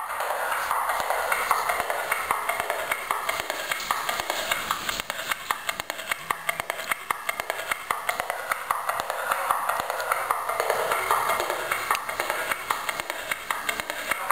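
Tinny music from the small built-in speaker of a Chicco children's musical toy, thin with almost no bass, with rapid clicking running through it.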